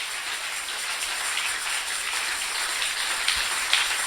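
Church congregation applauding: many hands clapping together in a dense, even patter.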